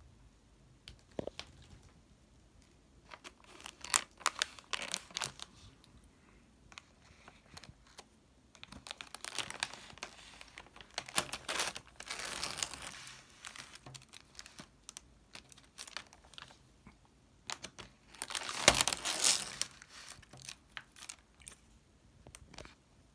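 Plastic cookie-pack wrapper crinkling as it is handled and its resealable top is peeled open, in three spells of crackly rustling and tearing, the loudest about three-quarters of the way through.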